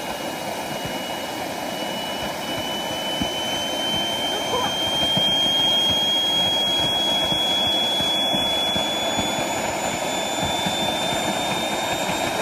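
Small gas turbine engine spooling up after light-off: a rushing roar with a high whine that climbs slowly in pitch and loudness, then settles to a steady run.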